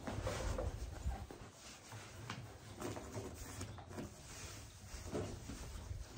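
Bed sheet rustling and swishing as it is pulled and tucked in by hand around a bedroll mattress, in soft irregular handling noises.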